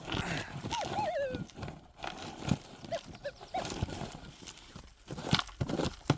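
Metal detector sounding wavering, falling tones and a few short blips while it is being ground-balanced, with a few sharp knocks.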